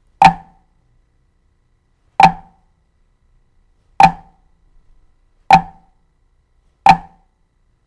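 Drumsticks playing flams on a practice pad: five crisp click-like strokes, each a low grace note and a main stroke landing almost together. They come about two seconds apart at first and draw closer as the pace picks up.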